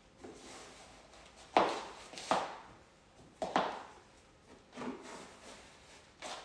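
Ankle boots knocking and thudding on a hard plank floor as they are pulled on and stepped into. The knocks come irregularly, about five of them, the loudest between one and a half and three and a half seconds in.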